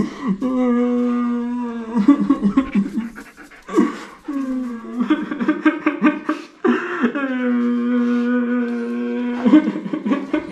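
A man crying loudly, in long drawn-out wailing sobs broken by short choppy sobs, the longest wail held for nearly three seconds.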